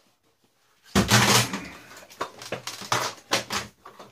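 Plastic parts of a Dyson DC41 vacuum cleaner clattering as it is pulled apart by hand: a loud clatter about a second in, then a run of lighter knocks and clicks.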